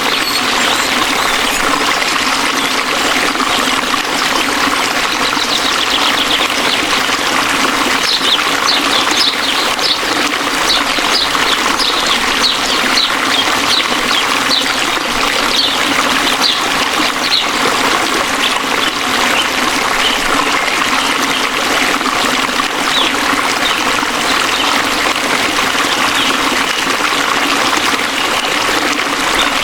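Waterfall rushing steadily. A bird calls over it in a quick series of short high chirps, from about a quarter of the way in until a little past the middle.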